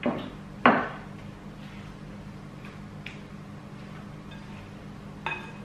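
Spatula knocking twice against a glass mixing bowl in the first second, then soft stirring of a chopped tofu and tempeh filling with faint clicks, and one more ringing clink near the end.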